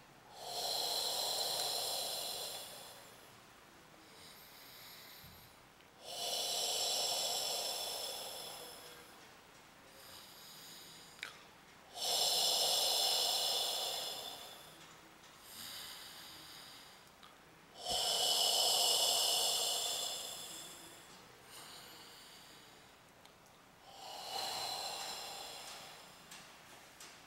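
Slow, deep audible breathing: five long breaths about six seconds apart, each lasting about three seconds, with softer breaths between them.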